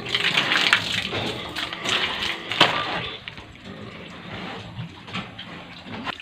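Water splashing and pouring onto the wet concrete floor of a pig pen as a pig is washed, loud for about three seconds and then falling to a quieter patter with a few knocks.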